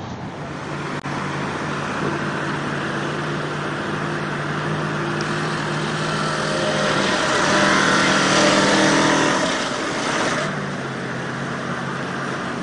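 Ural truck's engine running steadily under load as it wades through a fast-flowing flooded river, over a broad rush of water noise. Engine and water grow louder about seven seconds in and ease off again about three seconds later.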